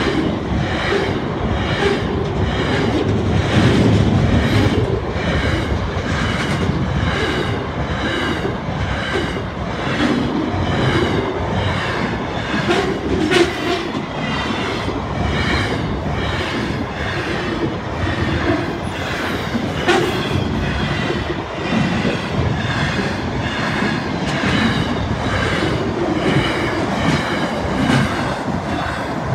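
Double-stacked container wagons of a long freight train rolling past with a continuous rumble, their wheels clacking in a steady rhythm about once a second.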